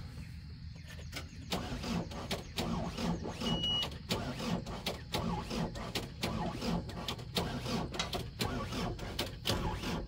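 Compact track loader's engine chugging in an uneven rhythmic pulse about two to three times a second, with sharp clicks over it, growing louder about a second and a half in; the machine is acting up in a way the owner recognises as a recurring problem.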